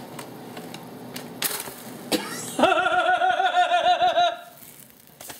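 A couple of sharp clicks, then a person laughing for about two seconds in the middle, the loudest sound here.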